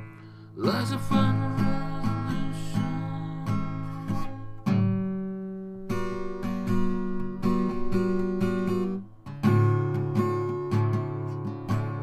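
Instrumental passage of a song: an acoustic guitar strumming sustained chords, with a brief rising sweep about a second in.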